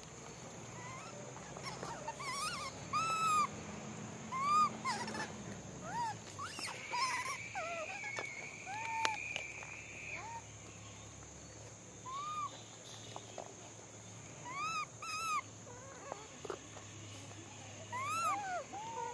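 Macaques giving short, arching coo calls, each rising and falling in pitch, repeated many times in an irregular series. A longer, steady high call is held for about three seconds a third of the way in, over a constant high hiss.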